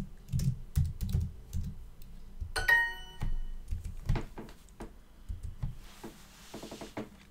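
Rapid typing on a computer keyboard, then Duolingo's correct-answer chime, a short bright ding about two and a half seconds in, as the typed answer is accepted. A few more scattered key clicks follow.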